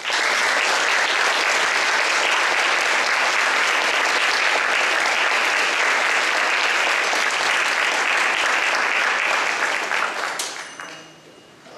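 Audience applauding, starting all at once and fading out about ten seconds in.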